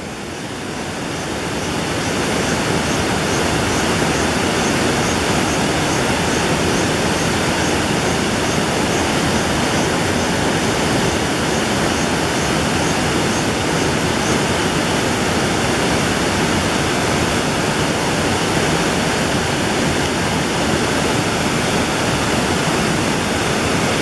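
Large waterfall plunging into a deep pool: a steady, full rush of falling water that swells over the first two seconds and then holds even. A faint high chirping, about two a second, sits under it through the first half.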